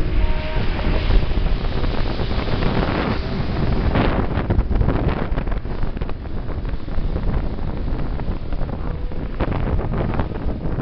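Steady rumble of a moving vehicle, road and engine noise heard from inside, with wind buffeting the microphone and a few sharp knocks.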